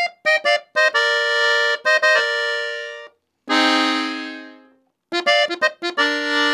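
Dino Baffetti three-row diatonic button accordion in F playing a melody phrase on the treble buttons. A run of short notes and a few held notes comes first. About halfway through, after a brief gap, a held chord fades out, and quick notes start again near the end.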